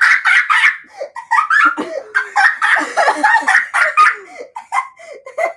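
Really loud, high-pitched laughter in rapid bursts, easing off near the end.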